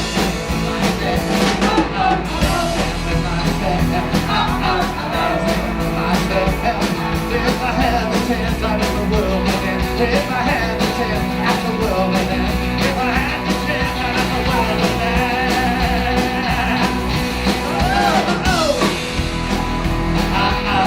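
Live rock band playing: drums keep a steady beat under guitar and a wavering melody line that could be voice or lead guitar.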